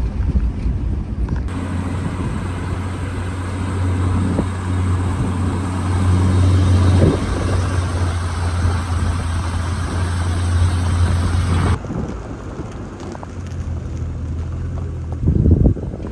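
Steady low drone of a running vehicle engine with a rushing noise over it; it starts suddenly about a second and a half in and cuts off suddenly near the end.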